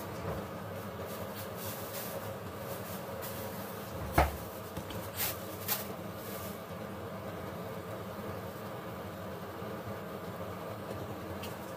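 Steady background hum, with one sharp knock about four seconds in and two softer clicks a second or so later.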